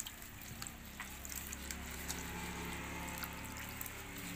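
Water sloshing and dripping in a plastic basin as hands and a sponge scrub termite mushrooms, with scattered small splashes over a steady low hum.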